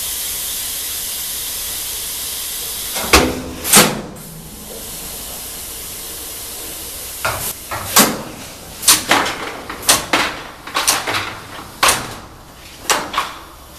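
Machinery of a VDE insulation test rig running. A steady hiss lasts about three seconds, followed by two sharp clacks and a softer hiss, then a run of about a dozen sharp clacks and knocks.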